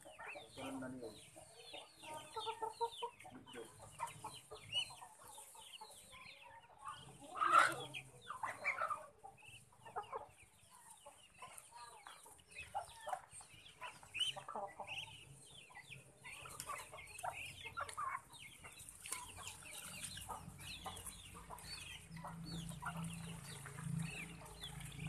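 A flock of young ducks and chickens calling while they feed, a continuous chatter of many short peeps and clucks, with one louder call about seven and a half seconds in.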